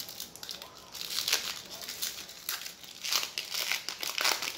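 Shiny foil wrapper of a Topps Chrome baseball card pack crinkling and tearing as it is ripped open by hand, in several short bursts.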